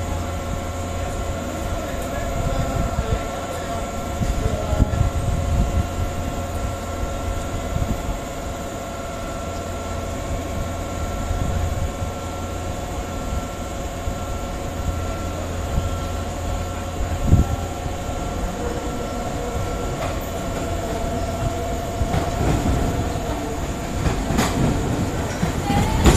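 Nankai 8000 series electric train approaching and running in alongside the platform, with wheel clatter as it passes near the end.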